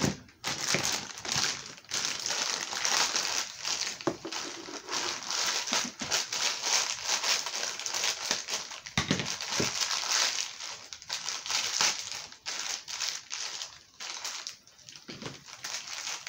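Plastic packaging crinkling and crackling as toy parts are unwrapped and handled, a dense run of small crackles that thins out near the end.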